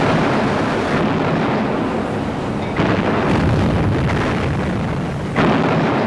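Heavy naval gunfire: three loud blasts about two and a half seconds apart, each trailing off into a long rumble.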